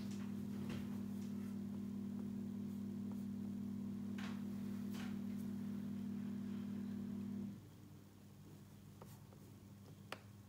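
Steady low electrical hum with a few light taps and clicks. The louder part of the hum cuts off about seven and a half seconds in, leaving a fainter hum.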